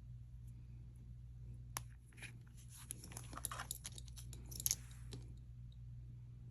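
Faint handling of small jewelry pieces: scattered light clicks and short rustles, mostly in the middle, over a low steady hum.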